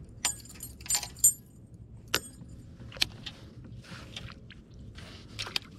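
Small metal clinks and jingling from a fishing lure's hooks and hardware and a baitcasting reel being handled: a quick cluster of clinks in the first second and a half, then a few scattered sharp clicks.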